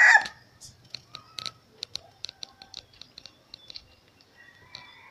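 A rooster's crow ends about a third of a second in, followed by a scatter of light, sharp clicks and taps and a faint, short call near the end.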